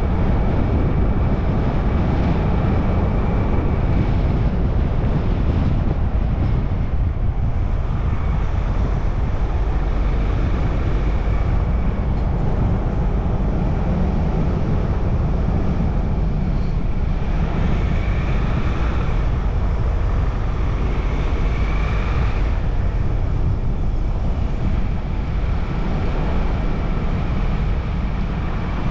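Steady low road and wind rumble from a car driving along, with a faint high whine that swells briefly twice in the second half.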